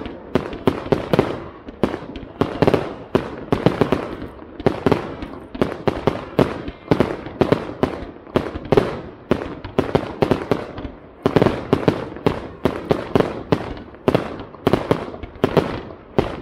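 Aerial fireworks display: a rapid, unbroken run of bangs, several a second, as shells and rising stars burst overhead.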